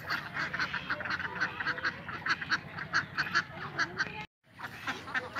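A flock of domestic ducks quacking, many short quacks overlapping in quick succession. The sound cuts out completely for a moment a little after four seconds, then the quacking resumes.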